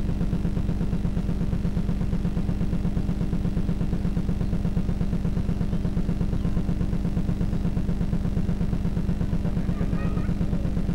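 A small motor running steadily: a low, constant mechanical hum with a fast, even pulsing. A few faint, high wavering tones come in near the end.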